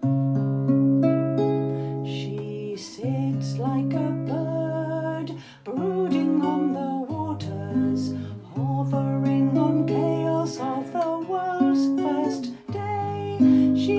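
Acoustic guitar strumming a hymn accompaniment, joined about three seconds in by a woman singing solo.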